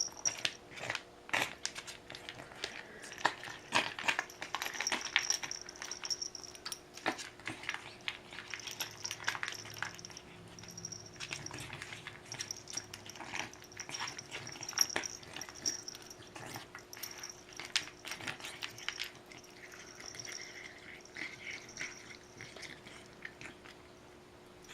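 A pet eating, with irregular crunching clicks.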